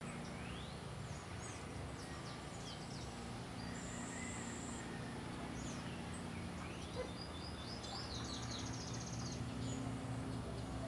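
Several tropical forest birds calling at once: scattered short chirps and sliding whistles, a thin high trill about four seconds in, and a rapid ticking trill from about eight seconds. A steady low hum runs underneath.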